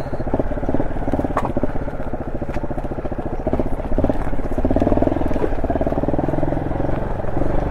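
Honda SL230's single-cylinder four-stroke engine, fitted with an aftermarket muffler, running under way at low-to-moderate revs with fast, even firing pulses. The revs rise a little about four seconds in, and a couple of sharp clicks come through about a second and a half and two and a half seconds in.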